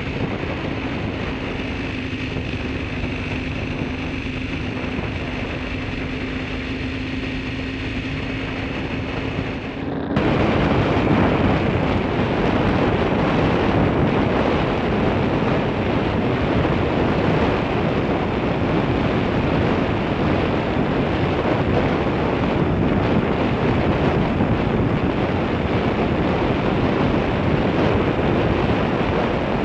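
Wind rushing over the microphone of a camera riding on a bicycle at speed, with road noise and a faint steady hum under it. About ten seconds in it jumps suddenly louder and rougher, and stays so.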